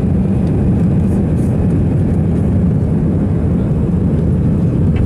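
Steady cabin noise of an Airbus A320-family jet airliner in flight: an even, low rumble of the engines and the air rushing past the fuselage, heard from inside the cabin.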